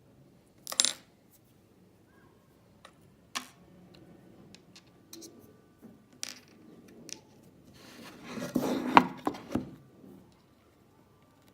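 Small hard parts and tools being handled: a few separate sharp clicks, then a run of clinking and clattering about eight to ten seconds in.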